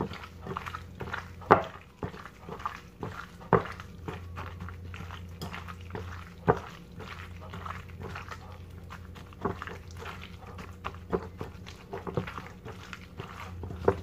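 Gloved hands squishing and tossing raw chicken pieces in a glass bowl, making irregular wet squelches and a few sharper knocks against the glass, over a steady low hum.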